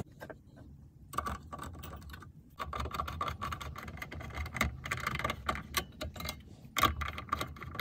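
Hands fitting plastic connectors, vent ducts and covers on a Toyota Prius hybrid battery pack: scattered small plastic clicks, taps and rattles at an uneven pace.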